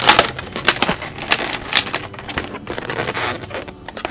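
Inflated latex modelling balloons being handled and twisted, rubbing and squeaking against each other and against the hands in a rapid, irregular run of squeaks and scrapes.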